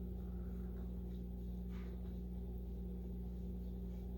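Steady low electrical hum, with one faint, brief soft sound a little under two seconds in.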